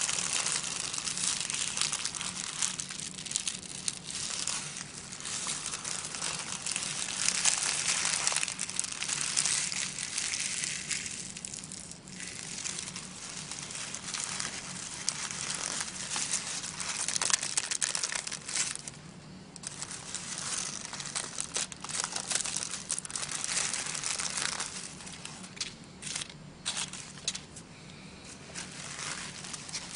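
Thin tissue paper crinkled and crumpled by hand: a dense, continuous papery crackling, with a couple of short lulls, that thins to sparser separate rustles near the end.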